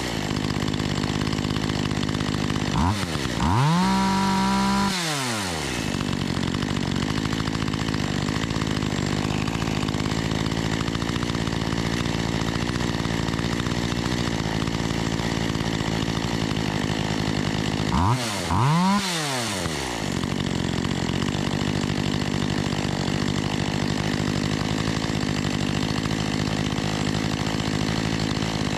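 Makita EA3200S two-stroke chainsaw idling steadily and revved up and back down twice, while the carburetor's low-speed mixture is tuned after a diaphragm repair. Just before, it was running too rich and then a little too lean.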